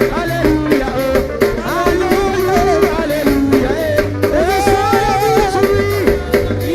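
Upbeat gospel praise music with a steady drum and percussion beat under a wavering lead melody.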